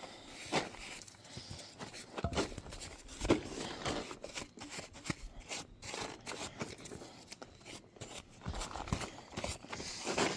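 Applicator stroking wood sealer onto a 2x4 pine ladder: irregular scratchy rubbing strokes on the wood with occasional light knocks.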